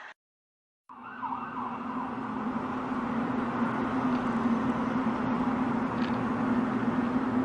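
After about a second of silence, a loud, steady, siren-like drone starts: one constant low tone under a rushing noise, with a brief wavering, warbling pitch just after it begins. It is one of the unexplained 'strange sky sounds' whose source is not identified.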